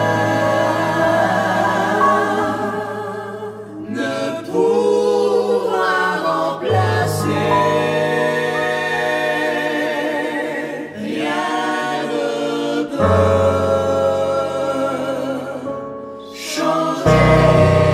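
Choir singing a French gospel hymn (cantique) in sustained chords, the phrases breaking off and starting again every few seconds.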